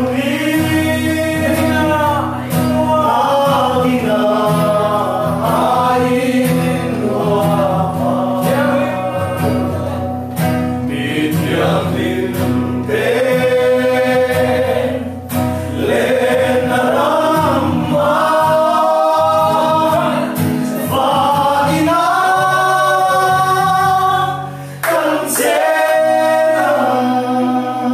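A gospel song sung by several voices over sustained low accompaniment notes.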